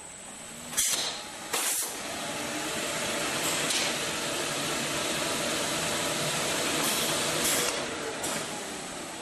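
U-3102-E/PS shirt front creasing press working: two short, sharp hisses of released air about a second and a second and a half in. Then comes a long, steady rushing hiss through the press that eases off near the end.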